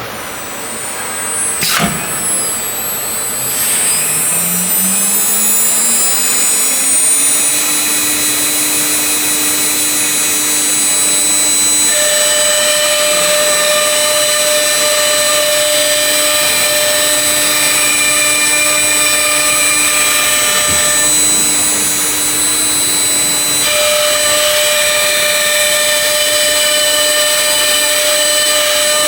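CNC router spindle spinning up, its whine rising in pitch over the first several seconds, then running at a steady high whine along with other steady machine noise. Further tones join about twelve seconds in, stop briefly, and return.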